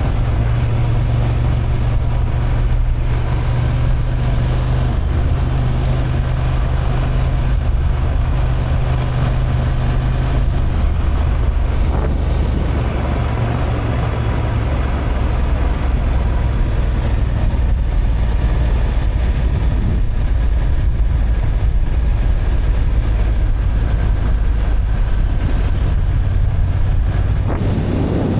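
Honda XL750 Transalp's parallel-twin engine running steadily under way, its note dropping to lower revs about eleven seconds in, with wind noise on the microphone.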